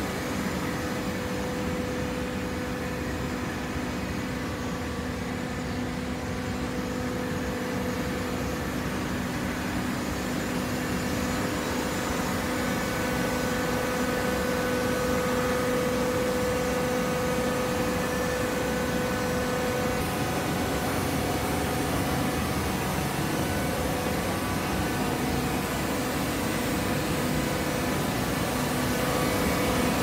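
Automatic hydraulic baler running: a steady machine hum from its motor and hydraulic pump, with a low held tone and a stronger one above it, and no strokes or knocks.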